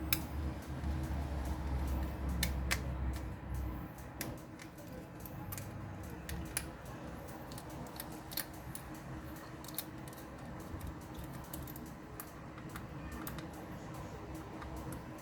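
Scattered light clicks and taps of tools and small parts as a Samsung Galaxy S3 phone is taken apart, with a low rumble in the first few seconds.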